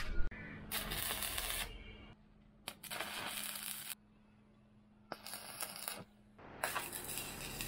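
Stick (arc) welder arcing in four short bursts, each about a second long, crackling and hissing as a steel hinge is tack-welded onto the steel pipe body of a smoker. A steady low hum runs underneath.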